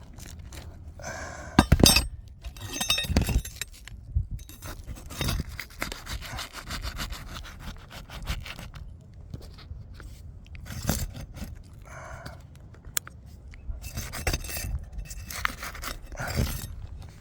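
Scraping and knocking from hand work with nails on a roof slope, loudest in a cluster of sharp knocks about two seconds in, with scattered smaller knocks and scrapes after.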